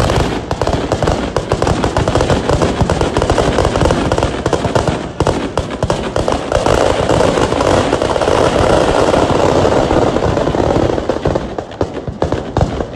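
Firecrackers packed inside a burning Ravana effigy go off in a dense, continuous string of loud bangs and crackles. They die down shortly before the end.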